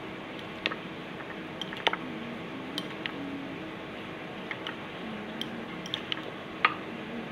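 Metal fork stirring cauliflower florets in thick batter in a small ceramic bowl: soft squishing with scattered sharp clinks of the fork against the bowl, the loudest near the end.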